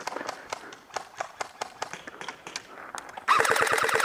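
Quick running footsteps, a steady patter of about five steps a second. Near the end they give way to a loud short full-auto burst from an electric airsoft gun fired close by, about a dozen shots a second, that cuts off abruptly.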